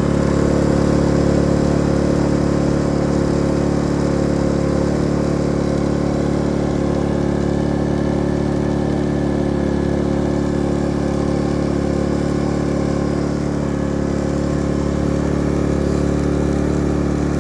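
Pulsar GX400BN 4000 W dual-fuel inverter generator running steadily on propane in eco mode with no load yet connected: an even engine hum. The level dips slightly about thirteen seconds in.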